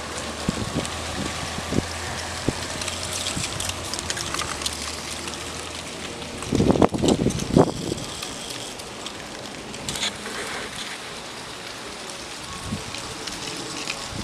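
Wind blowing across the camera's microphone on a windy day, over a steady background of street traffic. A cluster of louder gusts comes about seven seconds in.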